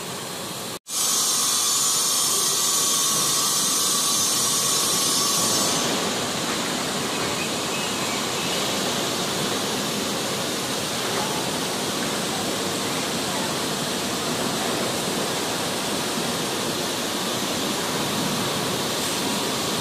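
Steady hissing noise with no distinct events, cut off briefly about a second in, hissier for the next few seconds and then even.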